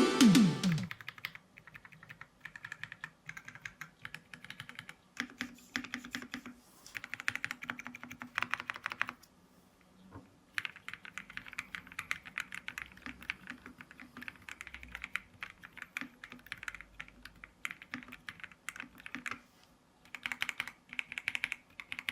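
Typing on a Keychron Q6 Ultra 8K mechanical keyboard with a CNC-machined aluminum case: rapid keystrokes in bursts, with a brief pause about halfway through and another near the end.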